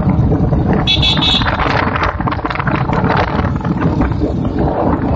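Steady rumble of a moving vehicle with wind buffeting the microphone, and a short, high horn toot about a second in.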